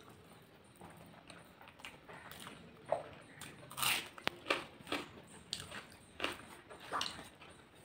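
Close-up crunching bites into a raw red onion and chewing: quiet mouth sounds at first, then a run of sharp crunches from about three seconds in.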